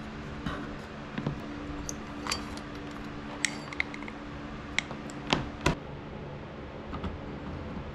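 Metallic clicks and clatter from the sprocket cover, chain and bar of a STIHL 015L chainsaw being taken off by hand, over a steady low hum. A quick run of light ticks from the chain links comes about three and a half seconds in, and two sharper knocks from the bar come a little past halfway.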